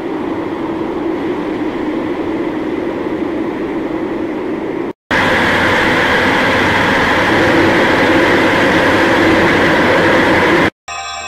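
Harsh, steady static-like noise in two stretches, cut by a moment of silence about five seconds in. The second stretch is louder and hissier, and it stops abruptly near the end.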